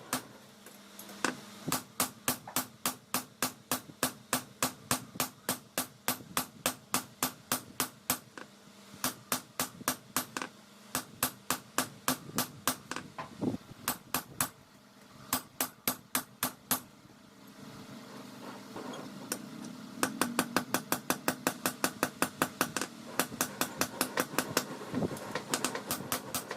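Hammer blows on steel at an anvil, forging a dao blade from car leaf-spring steel: sharp ringing strikes in runs of a few a second with short pauses, coming faster in the last several seconds, over a steady low hum.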